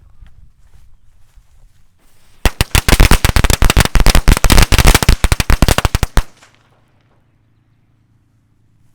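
A strip of Black Cat limited edition color firecrackers going off in a rapid, uneven string of sharp bangs, starting about two and a half seconds in and lasting roughly four seconds before cutting off. The string goes really quick, and a lot of the crackers don't go off.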